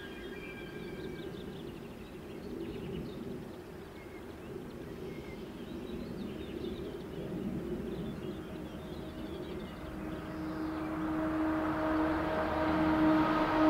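Intercity train rolling away into the distance: its wheel squeal dies out in the first second, leaving a low rumble with faint bird chirps. From about ten seconds in, a steady hum with two held tones swells louder.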